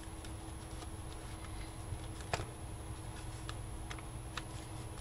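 Light, scattered clicks and taps of metal paper clips being slid onto cardstock while the paper is handled, with one sharper click a little over two seconds in.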